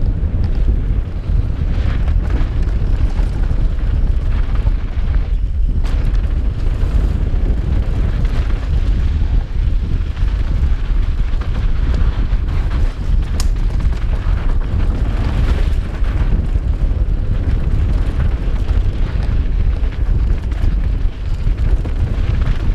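Wind rushing over a helmet-mounted GoPro HERO4's microphone on a fast downhill mountain bike run: a loud, steady, low rumble, with the tyres and bike rattling over loose dirt mixed in.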